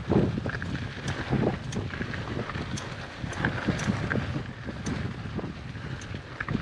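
Mountain bike rolling along a dirt trail: wind buffeting the action-camera microphone over a low rumble from the tyres, with scattered sharp clicks and rattles from the bike.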